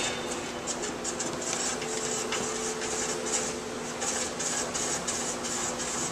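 Table saw's blade-tilt mechanism being cranked by hand: the trunnion carriage scrapes along its curved ways in a quick, uneven run of short rasping strokes over a low steady hum.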